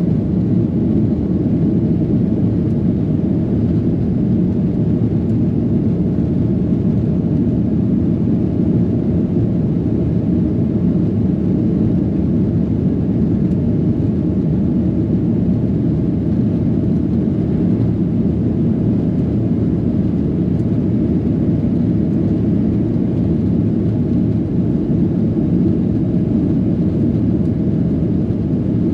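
Nok Air airliner's engines and airflow: a steady low drone with no rise or fall.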